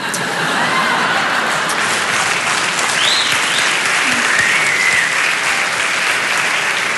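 Live audience applauding steadily, with a few faint gliding tones rising and falling above the clapping.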